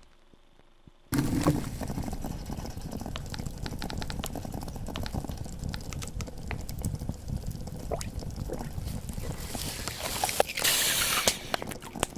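Dripping and trickling water, with many small clicks over a steady low rush. It starts about a second in, after a brief near silence, and grows brighter and hissier near the end.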